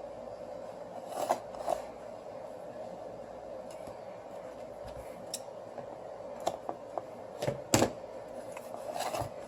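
Small hand tools handling strips of double-sided adhesive tape: a scatter of light clicks and snips, the loudest few about three-quarters of the way through, over a steady low hum.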